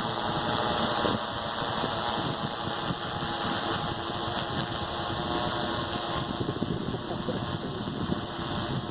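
DJI Matrice 600 Pro hexacopter's six rotors humming steadily as it climbs away after takeoff, the pitched hum fading about a second in and the sound slowly growing quieter.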